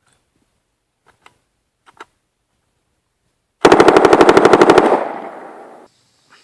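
A Stemple submachine gun in .45 ACP firing one fast full-auto burst of roughly fifteen rounds in just over a second, about halfway in. The echo dies away over the next second. A few faint clicks come before the burst.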